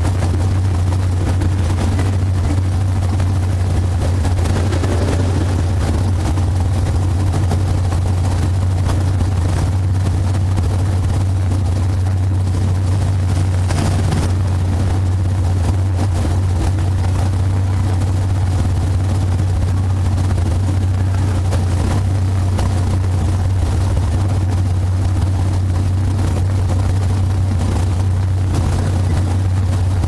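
Car engine idling steadily, heard from inside the stripped-out cockpit as a loud, even low hum.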